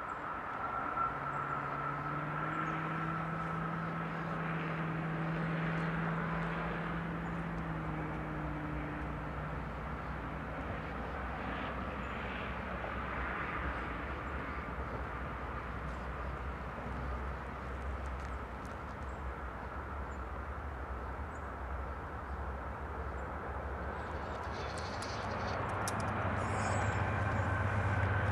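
Diesel locomotives of an intermodal freight train running at a distance: a steady low rumble with a droning hum for the first several seconds, swelling louder near the end.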